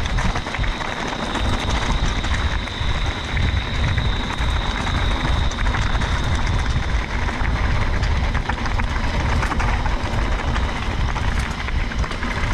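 Bicycle ride on a rough trail: steady wind rumble on the microphone with a run of small rattles and clicks from the bike, and a thin steady high tone through roughly the first half.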